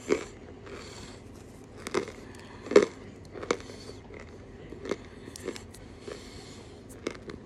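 A person crunching and chewing a mouthful of chalk close to the microphone, with a sharp crunch every second or so and the loudest a little before three seconds in.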